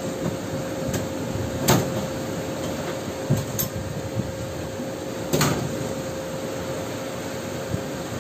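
Metal pieces and locking pliers clinking and knocking as they are handled and set together, a few sharp clinks spread through, the loudest about two seconds and five and a half seconds in, over a steady mechanical hum with a faint constant tone.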